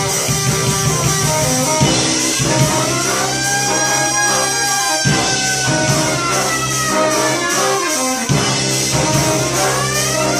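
A brass band with saxophone and drums playing: long held horn notes that scoop up into pitch twice, over a steady low bass line.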